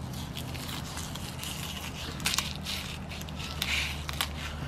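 Knife working along a flathead fillet on a wooden cutting board, separating the scaled skin from the flesh: a run of short scrapes and crackles, the loudest about two seconds in.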